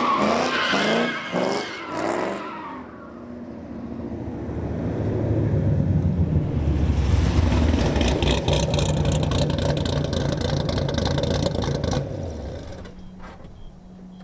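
Cammed Camaro SS's LS V8 revving hard in repeated surges with tires squealing as it spins donuts. It then builds to a loud, sustained full-throttle run as the car slides past close by, and drops back to a quieter idle near the end.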